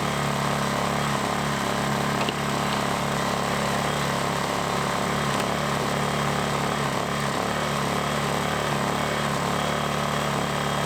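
Lifan ESI860i-CA 40cc gasoline inverter generator running steadily at a constant engine speed, with no change in load. There is a faint click a little over two seconds in.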